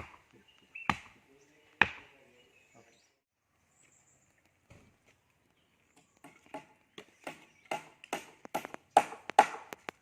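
Repeated sharp knocks of hand-tool strikes in construction work. There are three spaced blows in the first two seconds. Near the end comes a quicker run of about a dozen blows, roughly three a second.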